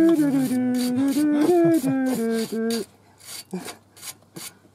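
A man sings a wordless tune in held notes while a hand wire brush scrubs the front wheel hub in quick strokes. The singing stops about three seconds in, leaving the brush strokes, about three a second.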